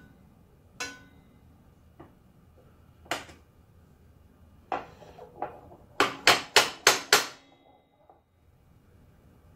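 Sharp clicks and knocks from a Delta 10-inch compound miter saw as it is handled and adjusted, a few spaced-out ones followed about six seconds in by a quick run of six louder clicks, about five a second.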